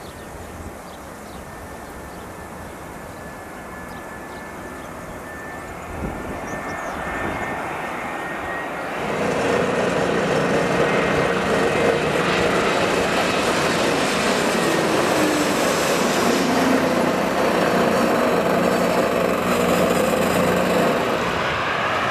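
Jet airliner on landing approach, its engine noise growing steadily louder as it comes closer, then rising sharply about nine seconds in as it passes close overhead and staying loud.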